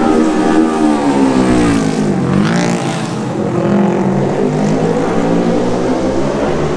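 Racing motorcycle engines running at high revs. The pitch falls as a bike goes past, then rises steeply about two and a half seconds in as a bike accelerates, and the engine keeps running hard.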